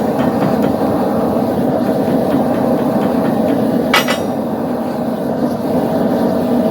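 Gas forge burner running with a steady rushing noise, and one sharp hammer strike on metal about four seconds in.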